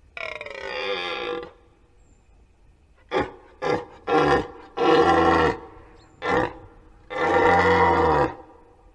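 Red deer stag roaring in the rut: one long roar, then after a pause a run of short roars and two more long ones, the last near the end.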